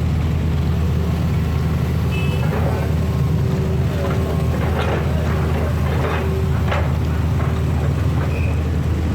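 Street traffic: motor vehicle engines running steadily, with a few short clatters in the middle.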